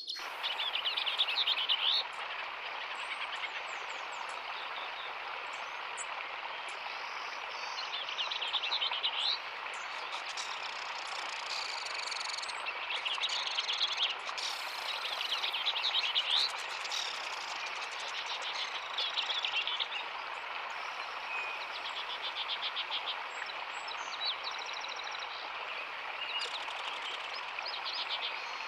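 Birds chirping and calling in many short, repeated notes over a steady, dense background chorus or hiss from the natural surroundings.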